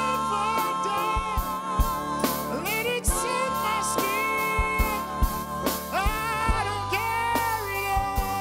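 A live band plays a slow soul-style song on piano, drum kit, electric guitars and bass. A singer holds long notes with vibrato over the band, and drum hits fall steadily throughout.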